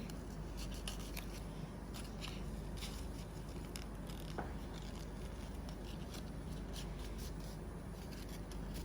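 Paper being folded and creased by hand: faint, scattered crinkles and scrapes over a steady low background hum.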